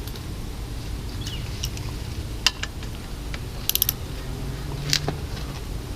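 Socket wrench ratchet clicking in short runs, with single sharp metal clicks and a quick run of about five clicks a little past halfway, as it works on a dirt bike's tight oil drain bolt.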